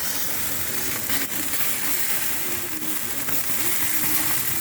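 Jerk chicken sizzling on the grate of an oil-drum jerk pan over the fire, a steady hiss, with a faint click about a second in.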